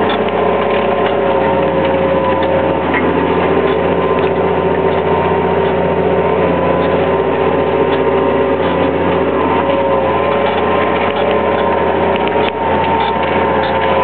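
Massey Ferguson 6280 tractor's diesel engine running steadily under load while pulling a four-furrow plough through the soil, heard from inside the cab.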